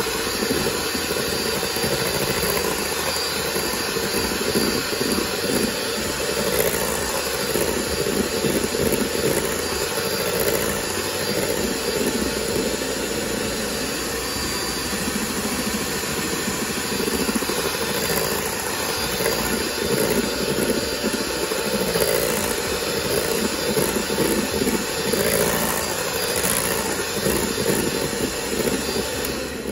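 Electric hand mixer running steadily, its twin beaters whipping cream in a stainless steel bowl; it stops right at the end.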